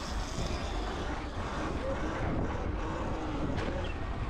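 Wind buffeting the microphone with road and traffic noise while riding an electric dirt bike.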